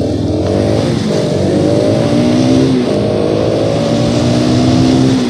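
Motorcycle engine under hard, full-throttle acceleration, its pitch climbing through the revs and dropping back at upshifts about a second in and again near three seconds, then climbing again.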